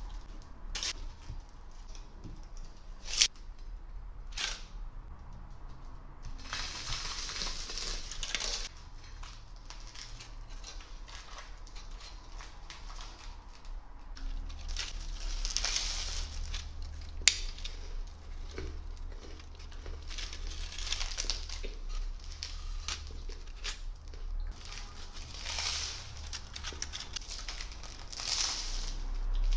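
Close-miked crunching of Ferrero Rocher chocolates, the wafer shells and hazelnuts crushed between the teeth in repeated bursts a second or two long, with two sharp clicks, one a few seconds in and one just past the middle.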